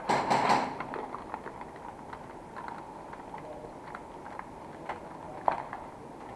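Slow, cautious footsteps scuffing on a gritty concrete floor, with scattered small clicks and knocks, and a brief louder rustle at the very start.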